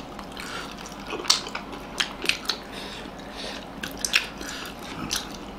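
Close-up eating sounds: biting into and chewing steamed egg momos dipped in soupy jhol achar, with several short wet mouth clicks and smacks scattered through.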